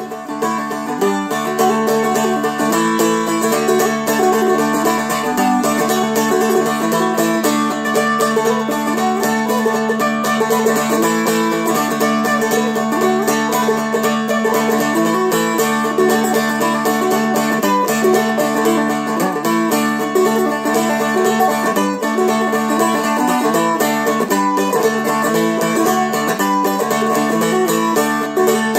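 Seagull Merlin, a four-string fretted dulcimer, flatpicked in a fast Celtic jig tune, with a steady drone ringing under the quick melody notes.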